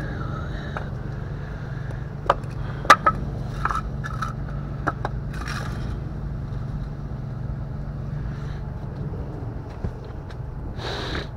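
A few sharp knocks and scrapes as a wooden block is worked in against a car tyre beside a steel tow-truck wheel-lift arm, over the steady low hum of an engine running.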